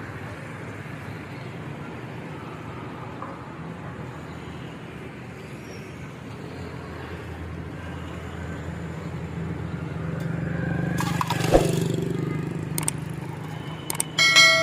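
Steady traffic noise from a busy city road, swelling as a vehicle passes about two-thirds of the way through, with a sharp knock in the middle of that swell. Near the end comes a short, clear ringing tone.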